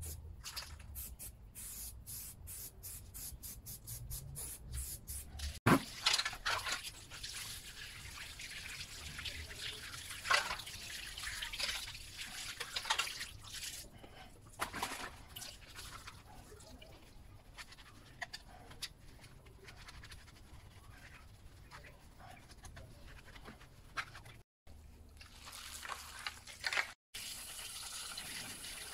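An aerosol spray paint can in a quick run of short bursts for the first few seconds, then water splashing as plastic drawer handles are scrubbed by hand, and near the end a garden hose stream running steadily over them.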